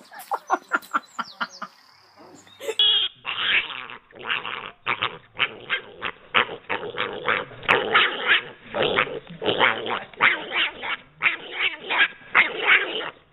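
A piglet calling in a rapid run of short, loud grunts and squeals, several a second, starting about three seconds in. Before it comes a fainter, quicker run of short animal calls.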